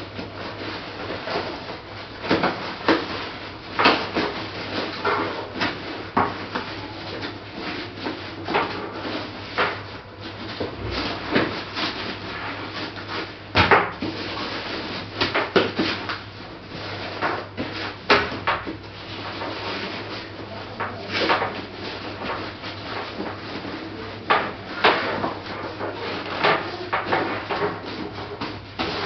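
Handling noise from a camera belt pack being worked by hand: irregular rubbing, scraping and clicks, over a steady low hum.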